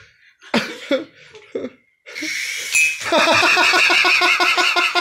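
Small electric motor and rotor blades of a toy RC helicopter spinning up about two seconds in with a high whine, then running loud with a steady buzz and a rapid, even chop from the blades.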